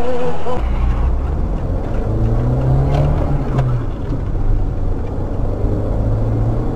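Car engine and road noise of a moving car, the engine note rising about two seconds in and easing off again.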